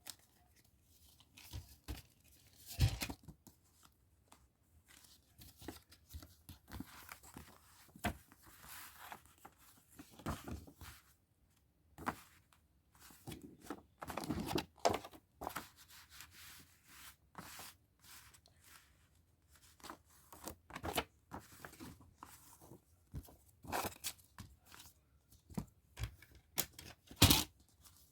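A CD's paper booklet being worked out of a plastic jewel case where it is stuck: rustling and scraping of paper, with sharp clicks and knocks of the plastic case at irregular moments.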